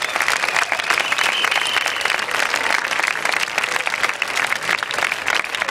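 Large crowd applauding steadily, a thick even patter of many hands clapping.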